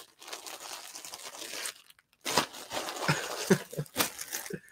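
Clear plastic poly bags holding folded leggings crinkling as they are handled, in two spells with a short break about two seconds in.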